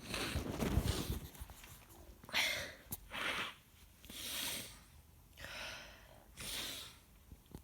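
A woman with a head cold breathing hard through a stuffy nose: a louder, rougher burst of breath in the first second, then five short noisy breaths or sniffs about a second apart.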